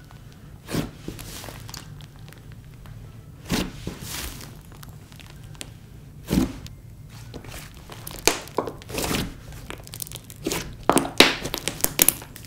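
Thick, dense slime being squeezed, pressed and folded by hand on a tabletop, giving wet squelches and crackling pops. A few single pops come early, then they come thick and fast over the last few seconds.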